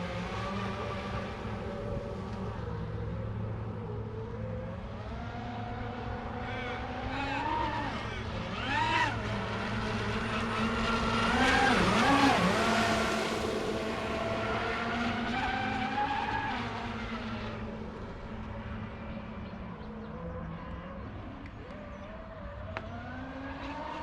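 Radio-controlled MHZ 1890 speed boat's LMT 3080 electric motors whining at speed. The pitch rises and falls several times, and the sound grows loudest with a rushing hiss about halfway through, then fades.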